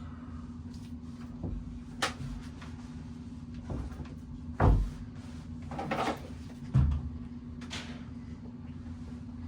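Scattered knocks and clicks of metal parts and tools being handled while working on a bicycle wheel hub, the loudest knock about halfway through and another a couple of seconds later, over a steady low hum.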